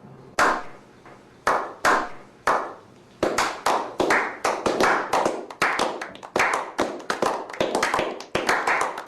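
Slow hand clapping: single claps about a second apart, then quickening to a steady run of about three claps a second.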